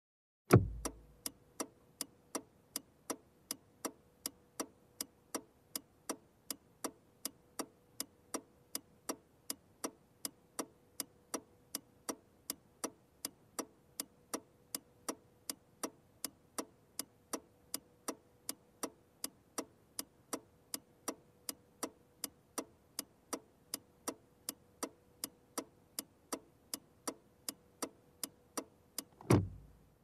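Honda Accord turn signal heard from inside the cabin: the indicator stalk clicks on, the flasher then ticks in an even tick-tock rhythm of about two clicks a second, and the stalk clicks off near the end.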